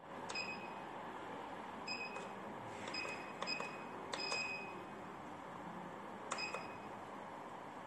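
Keypad beeps from the Daytech P400 coaster-pager transmitter as its buttons are pressed: about six short, high beeps, one a little longer about four seconds in, over a faint hiss.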